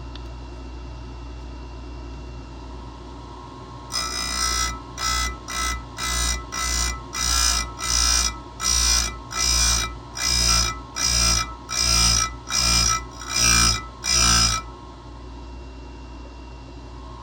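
Oregon chainsaw-chain grinder with a CBN wheel grinding the cutters of a steel race chain: about fourteen short grinding strokes, a little over one a second, each with a ringing high note. Between stretches the running grinder hums steadily.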